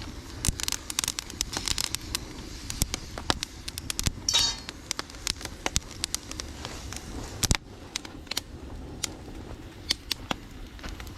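Wood campfire crackling, with many sharp snaps and pops over a low steady noise of the flames and a short hiss about four seconds in.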